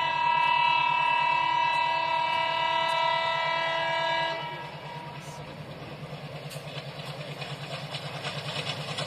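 Indian Railways locomotive horn sounding one long, steady blast that cuts off about four seconds in, followed by the rumble of an approaching train growing slowly louder. A low pulsing hum runs underneath.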